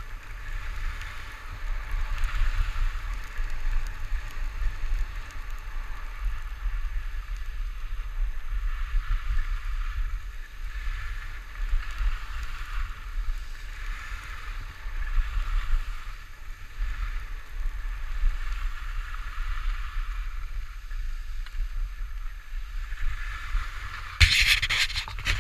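Skis scraping and hissing over snow, swelling with each turn every second or two, over steady wind buffeting on the camera's microphone. A louder, harsher scrape near the end.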